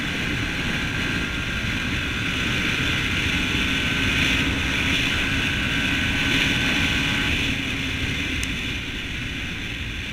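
Yamaha WR 125 X's single-cylinder 125 cc four-stroke engine running steadily at speed, with wind rush on the helmet microphone. About three-quarters of the way through, the engine note eases off and the sound drops a little.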